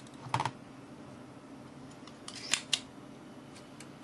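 Spring-loaded desoldering pump (solder sucker) clicking as it is worked to suck up a blob of solder: a short clatter of clicks about a third of a second in, then a louder cluster of sharp clicks about two and a half seconds in, with a couple of faint ticks after.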